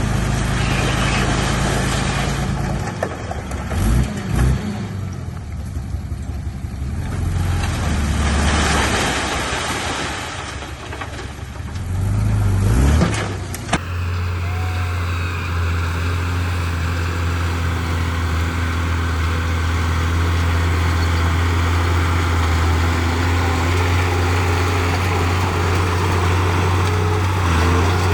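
Bulldozer's diesel engine running, its note rising and falling as it works. About halfway through it changes abruptly to a steady, even engine hum.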